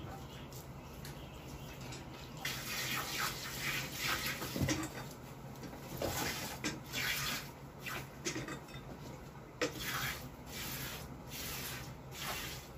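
Milk squirting from a water buffalo's teats into a steel pail during hand milking, in quick repeated spurts that begin about two seconds in.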